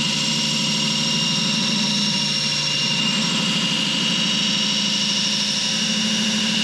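Belt grinder running steadily with an axe head's steel bit pressed against its metal-grinding belt, putting an edge on the axe: a steady whine over a grinding hiss.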